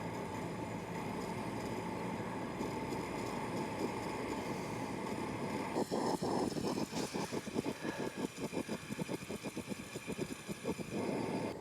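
Camping stove burner running with a steady rushing hiss after being turned up. From about six seconds in it sputters in rapid, uneven pulses for some five seconds, then steadies: the unsteady burning of a new stove that has not yet been burnt in.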